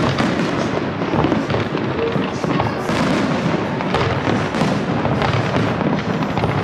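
Aerial fireworks shells bursting one after another: a dense, unbroken run of bangs and crackles, steady in loudness.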